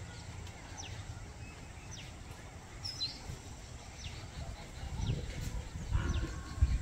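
A bird calling over and over, a short falling chirp about once a second, against steady outdoor background noise. A low rumble rises near the end.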